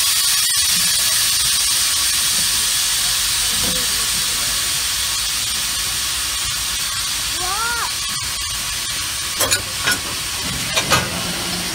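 Steam locomotive hissing steadily at the coupling end, easing off slightly over time. Two pairs of sharp clicks come near the end.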